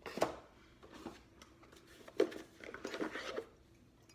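A ceramic mug being picked up and handled: a sharp knock about two seconds in, with lighter knocks and rustling around it.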